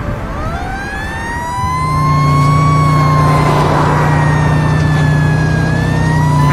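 Fire truck siren wailing: a slow rise, a long gradual fall, and another rise starting near the end. A steady low hum comes in about two seconds in.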